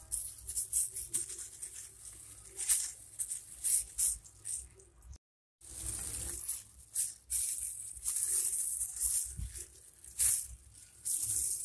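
Disposable plastic glove crinkling and rustling as a gloved hand arranges raw vegetables and chicken in a pan, in irregular crisp bursts. The sound drops out for a moment about five seconds in.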